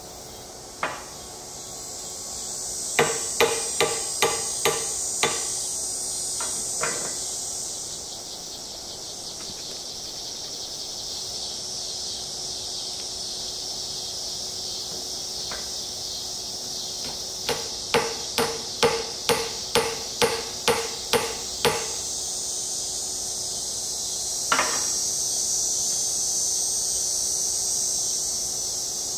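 Small hammer tapping steel pins through a knife's handle scales: two runs of light, ringing metallic taps, about six and then about ten, a little more than two a second, with a single knock near the start and another near the end.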